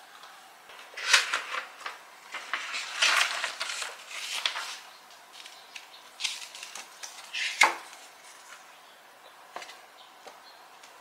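Handling of keyboard packaging: stiff paper and cardboard rustling and tapping as a fold-out card manual is lifted out of the box and unfolded. The rustles come in irregular short bursts, with the sharpest taps about a second in and about two-thirds of the way through.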